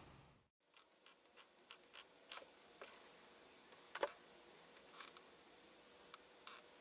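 Faint, scattered clicks and ticks from small parts being handled: axial diodes picked up from the bench and their wire leads bent with pliers. The loudest click comes about four seconds in.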